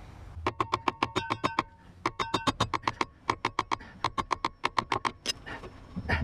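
Socket ratchet clicking in quick runs, about eight clicks a second, as its handle is swung back and forth on a shock absorber mounting nut.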